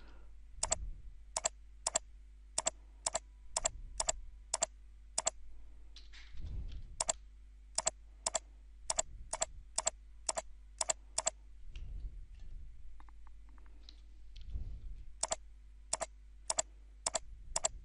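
Computer mouse clicks and keyboard keystrokes in quick runs of about three a second, with pauses after about five and eleven seconds, as points are picked and named in CAD software. A few soft low thuds fall between the runs over a steady low hum.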